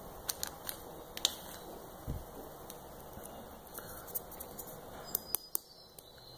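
Small lidded jar of acrylic nail powder mixed with pigment being handled and shaken in the hand: scattered light clicks and taps at uneven times, with a cluster near the end.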